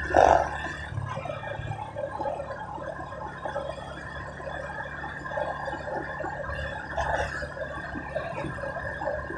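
Wind buffeting the camera microphone during a slow motorbike ride, with the engine's steady low hum underneath; a louder buffet comes right at the start.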